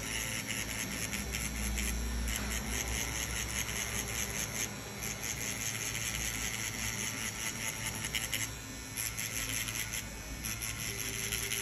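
Ai-tenitas Prophet rotary pen tattoo machine buzzing as it packs black shading into skin. The buzz runs in stretches that break off and start again every few seconds.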